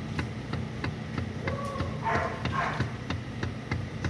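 Steering column of a 2015 Toyota Vellfire AGH30 clattering, a rapid even run of knocks about four a second, as the steering wheel is turned left and right with the car standing and the engine running. It is the sign of a disintegrated steering damper, the rubber coupling between the electric power-steering motor and the steering column.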